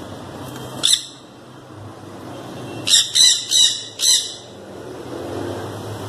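Sun conure screeching: one sharp screech about a second in, then a quick run of four screeches between about three and four seconds in.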